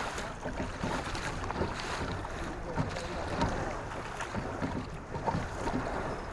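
Choppy river water splashing and lapping irregularly against a kayak's hull, with wind buffeting the microphone.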